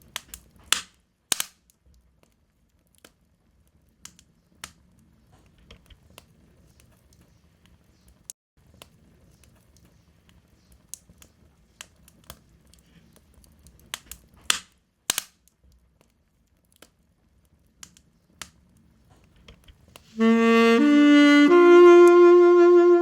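Wood fire crackling in a fireplace: sharp pops and snaps scattered over a quiet background. About twenty seconds in, a short musical jingle of three rising notes begins, the last one held.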